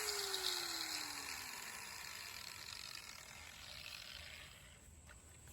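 DeWalt sander's motor spinning down after being switched off: a falling whir that fades away over about four seconds.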